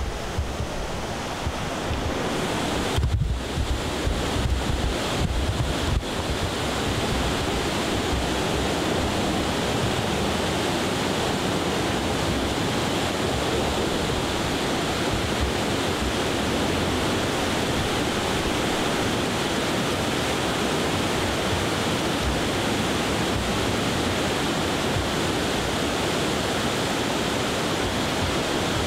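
The flood-swollen Winooski River rushing steadily, a constant even noise of fast, high water. For about the first six seconds wind buffets the microphone over it.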